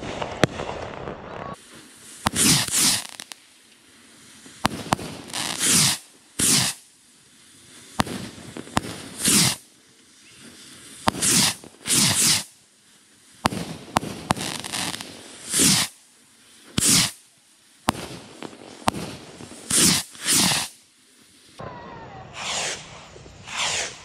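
Bottle rockets launching in quick succession from a rack: over a dozen loud half-second whooshes, often two close together, with sharp pops from the rockets' reports scattered between them.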